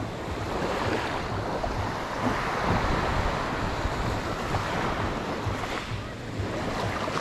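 Ocean surf washing onto a beach, a steady hiss of breaking waves that swells and eases, with wind on the microphone.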